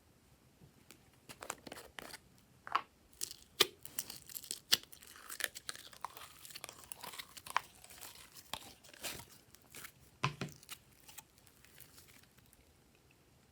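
Glossy slime being worked by hand, giving off irregular sharp pops and crackles, densest in the middle with a duller squelch about ten seconds in.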